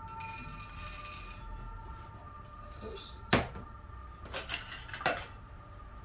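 Granular soil poured from a glass jug, rattling for about the first second and a half. Just after three seconds comes one sharp knock as the glass jug is set down on the table, then a few lighter clicks.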